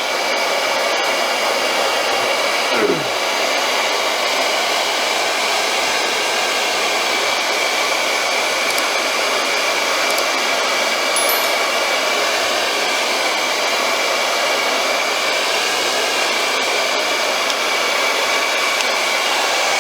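Handheld blow dryer running steadily: a constant rush of air with a steady high whine.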